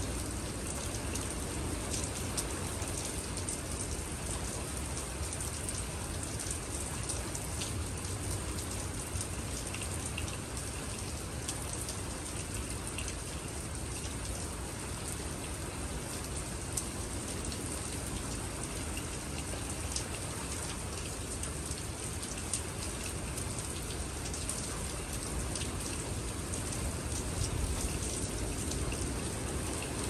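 Steady rain falling on wet pavement, with many close drops tapping and a low rumble underneath.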